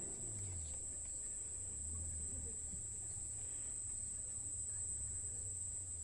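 Night-time crickets calling as one continuous high-pitched trill, over a faint low hum.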